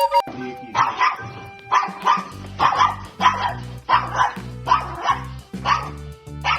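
A dog barking repeatedly, about ten short barks, over background music with a steady beat.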